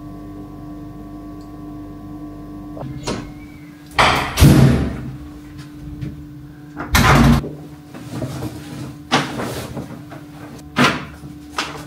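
A steady low hum at first, then an apartment front door opening and, about seven seconds in, shutting with a deep thud, with a plastic shopping bag and a jacket rustling and a few short clicks afterward.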